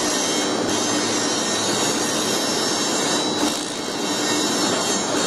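Steady industrial machinery din in a railway wheel forging shop: a constant hissing noise with a steady low hum underneath, easing slightly about three and a half seconds in.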